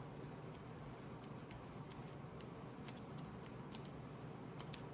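Faint light clicks and soft plastic rustling as a trading card is handled and slid into a plastic card sleeve.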